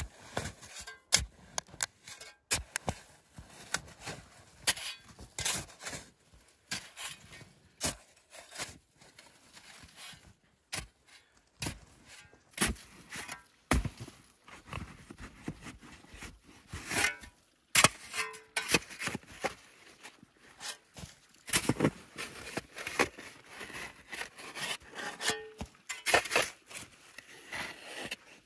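Shovel blade chopping and scraping into deep, packed snow, with irregular crunching strokes as snow is dug out.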